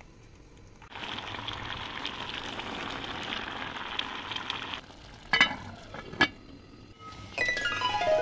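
A pot of rice, potatoes, tomatoes and oil boiling on the stove, with a steady bubbling sizzle that starts about a second in and stops shortly before the halfway point. Two sharp knocks follow, then music begins near the end.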